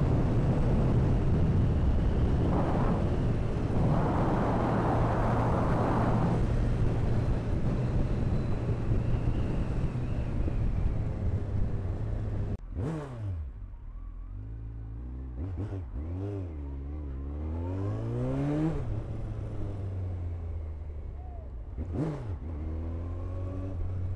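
Kawasaki ZX-14 inline-four engine running at speed under heavy wind noise. About halfway through the wind drops away and the engine note falls sharply. It then climbs for several seconds and falls again twice, the revs rising and dropping through gear changes.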